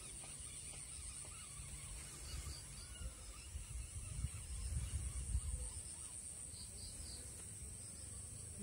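Riverside outdoor ambience: a steady high insect buzz with faint bird calls. A low rumble swells up through the middle.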